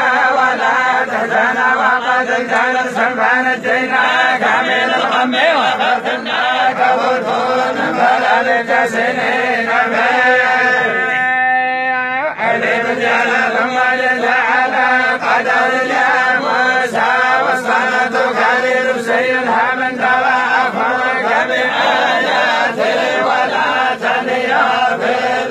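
A group of men chanting the Quran together in unison, the voices running on without a break, with one long held note about eleven seconds in.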